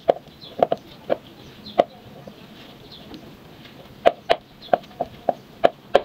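A spatula knocking against the side of a mixing bowl while stirring flour and milk into a dough: about a dozen short, irregular knocks, bunched near the start and again in the last two seconds, with a quieter stretch between.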